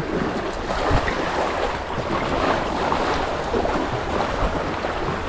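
Sea waves washing and breaking over shoreline rocks, a steady rushing, with wind buffeting the microphone.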